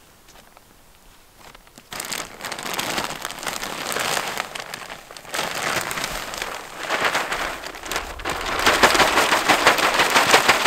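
Gritty scraping and crackling of soil and compost being worked with a garden tool on a planting bed, in several strokes that grow louder near the end.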